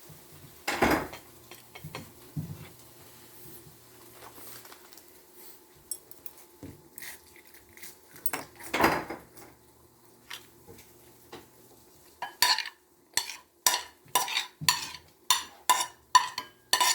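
Cutlery clinking and scraping against dishes during a meal, scattered at first, then a quick run of clinks, about three a second, in the last few seconds.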